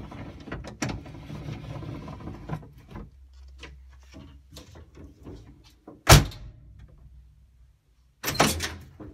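Hand work on a 1969 Camaro's door window hardware: clicks, light metal rattles and rustling, then one sharp, loud knock about six seconds in and a short cluster of knocks near the end.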